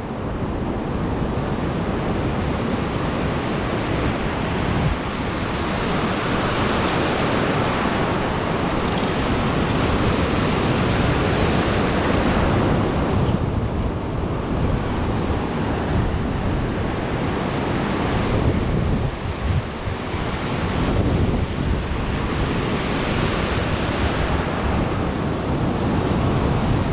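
Ocean surf breaking on a sandy beach, a steady rush that swells and eases as waves come in, with wind buffeting the microphone.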